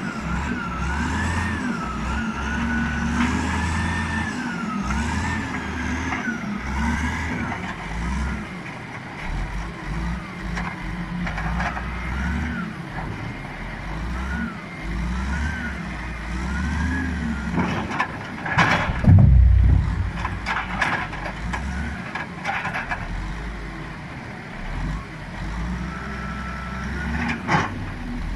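Caterpillar 980C wheel loader's diesel engine revving up and down under load, with a whine that rises and falls as it works, while unloading logs from a logging truck. A loud heavy thud, typical of logs dropping, comes about two-thirds of the way through, and a sharp knock comes near the end.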